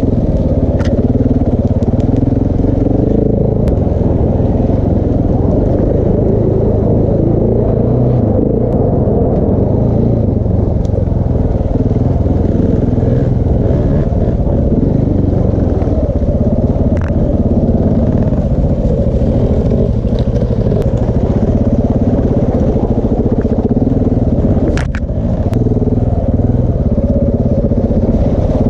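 KTM 690 Enduro R's single-cylinder four-stroke engine running steadily at low to moderate revs through a Wings exhaust with a large dB killer, with a few sharp clicks over it and a brief drop in engine sound about 25 seconds in.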